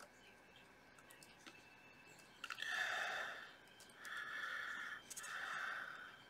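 A person breathing audibly, three breaths of about a second each in the second half, with a few faint clicks of tweezers on a small brass part before them.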